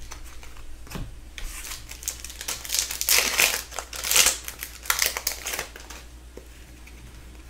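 Foil wrapper of a hockey card pack crinkling in the hands as the pack is opened and the wrapper tossed aside: a run of rustles starting about a second in, loudest near the middle, dying away before the end.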